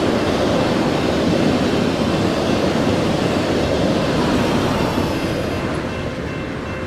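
Amtrak Auto Train railcars rolling past: steady noise of steel wheels on rail, easing off gradually in the second half.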